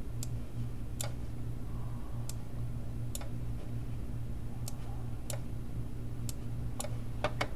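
About ten sharp, irregularly spaced clicks from a computer's controls as a web page is enlarged on screen, a couple coming close together near the end, over a steady low electrical hum.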